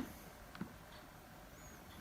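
Small clicks from a screwdriver and the plastic housing of a Nokia 6150 as its screws are driven in. There is a sharp click at the very start and a softer tick about half a second later, over a quiet background.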